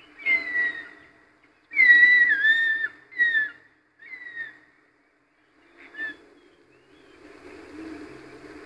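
Philippine eagle giving a series of high whistled calls, each sliding slightly down in pitch. The longest and loudest call comes about two seconds in and wavers as it falls, followed by shorter whistles. A faint low hum of background noise rises near the end.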